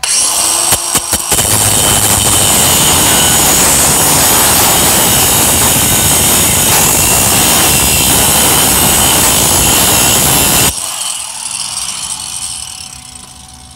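Cordless angle grinder cutting steel, a loud, steady grinding for about ten seconds, then the trigger released and the disc spinning down.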